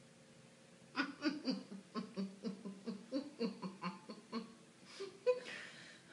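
A person laughing in a long run of quick pulses, about four a second, starting about a second in and trailing off before a brief sharp sound just after five seconds.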